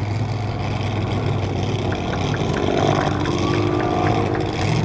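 AH-64D Apache Longbow attack helicopter in flight: its main rotor and twin turboshaft engines give a steady low drone while it banks and reverses direction.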